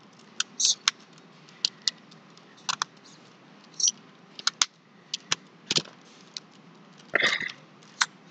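Plastic tiles of a small 15 sliding puzzle clicking as they are pushed around, in irregular sharp clicks with a few short scrapes, the longest about seven seconds in. The tiles are hard to move.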